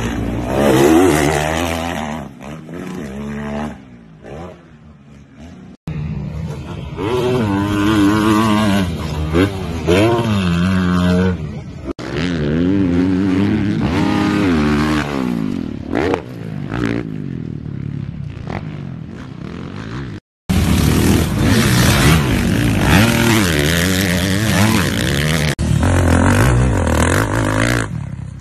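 Motocross dirt bike engines revving hard, their pitch climbing and dropping again and again as the riders work the throttle and shift gears. Several separate bikes are heard one after another, with abrupt cuts between them and a brief dropout about twenty seconds in.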